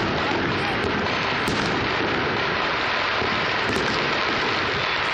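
Many fireworks going off at once, their bangs merging into a steady, dense crackle and rumble that sounds like heavy rain.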